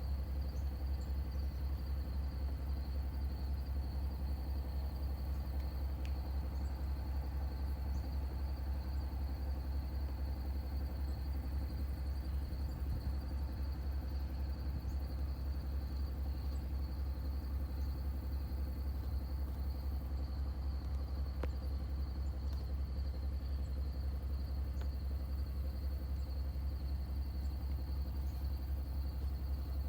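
Steady low rumble throughout, with a continuous high-pitched insect drone over it and a few faint ticks.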